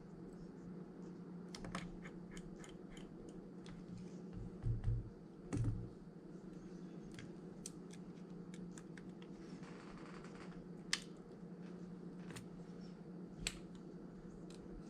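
Light clicks and taps of small hand tools against phone parts, with two dull low bumps about five seconds in, over a steady electrical hum.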